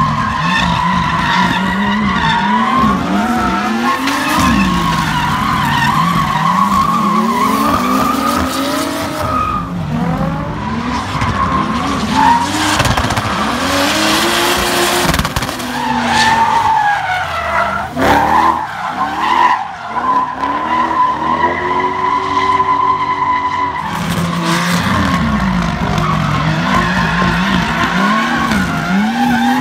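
Drift cars sliding sideways, one a V8-powered BMW E30: the engines rev up and down over and over while the tyres squeal in long, steady screeches.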